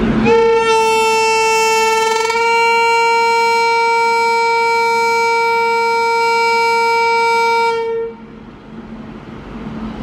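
WAP-7 electric locomotive's horn sounding one long steady blast of about eight seconds, then cutting off. The train's rolling noise carries on more quietly after it.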